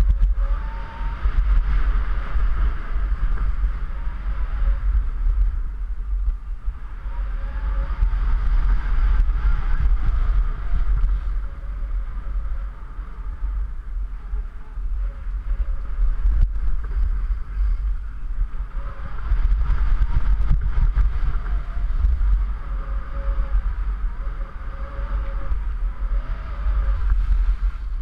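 Wind buffeting a moving camera's microphone with a heavy rumble, over the hiss and scrape of skis sliding on packed snow, which swells and fades several times during the run.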